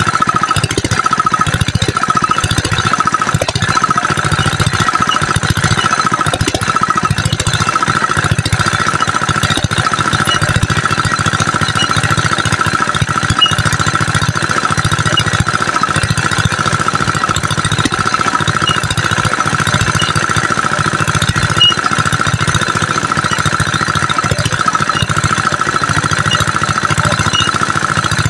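Small single-cylinder diesel engine running steadily with rapid even firing pulses, belt-driving an irrigation water pump while the pump is being primed. A high whine runs over it, wavering for the first several seconds and then holding steady.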